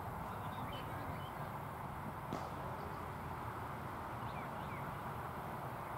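Steady outdoor background noise with a few faint, short high chirps scattered through it and a single sharp click a little past two seconds in.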